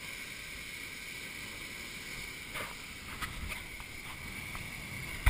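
Steady, muffled outdoor wind and sea noise picked up by a hand-held GoPro HERO camera, with a faint steady electronic whine and a few light knocks from the camera being handled around the middle.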